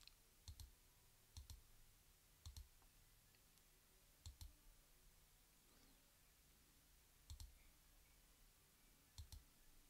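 Near silence: faint room tone with a few short, faint clicks scattered at uneven intervals, about one every second or two.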